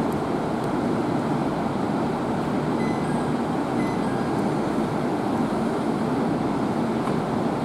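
JR East 701 series electric multiple unit standing at the platform before departure, its onboard equipment giving a steady, even running noise.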